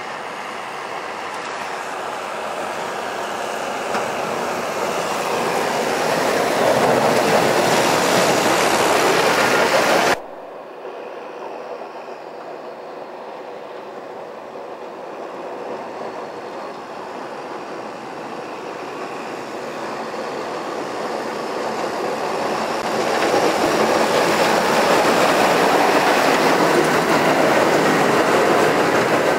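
Tractor clearing snow with a front-mounted diagonal plough as it approaches: a dense rush of engine noise and snow being pushed and thrown off the blade, growing louder as it nears. It cuts off suddenly about ten seconds in, then builds up again to its loudest near the end as the tractor approaches once more.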